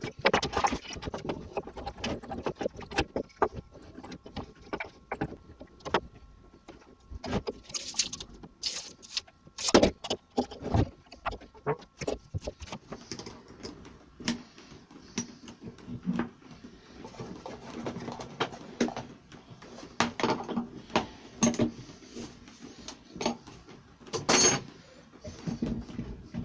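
Irregular clicks, taps and knocks of tools and wood being handled on a workshop bench, with a few louder knocks.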